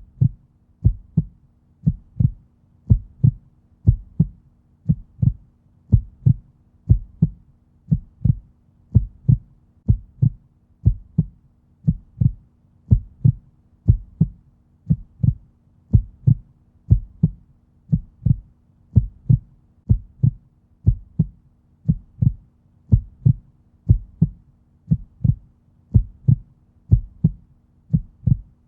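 Heartbeat sound: steady lub-dub double thumps at a resting rate of about one beat a second.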